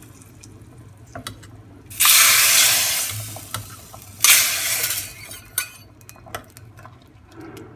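Hot tempering oil with fried mustard seeds, urad dal, cumin, fenugreek, dried chilli and asafoetida sizzling loudly as it is poured into the sambar: one burst about two seconds in and a second, shorter one just past four seconds. Metal ladles clink against the steel pot in between.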